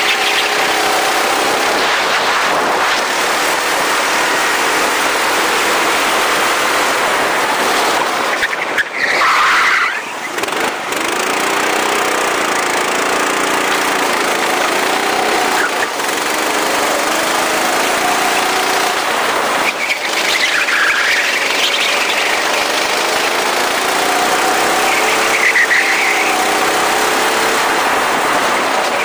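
Go-kart engine running hard, its pitch rising and falling again and again as it speeds up and slows, over a steady rushing noise. A few short tyre squeals, the clearest about nine seconds in and again near the end.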